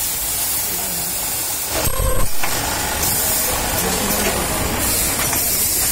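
Factory machinery running around an automatic elastic-joining sewing machine: a steady mechanical hum under a strong high hiss, with a short louder burst about two seconds in.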